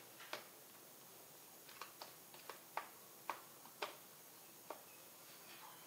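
Faint, irregular light clicks of a steel spoon tapping and scraping a plastic box as a crumbly maida burfi mixture is pressed level, about eight small ticks over several seconds in otherwise near silence.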